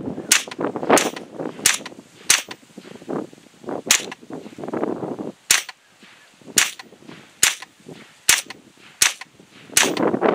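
Handgun shots fired one at a time into a hay bale, about a dozen sharp cracks, mostly under a second apart, with a short pause after the fourth.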